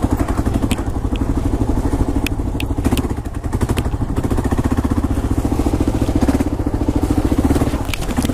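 Kawasaki KLR 650's single-cylinder four-stroke engine running at low revs on a dirt trail, with a steady chugging firing pulse that dips briefly about three seconds in. A few sharp clicks and knocks sound over it.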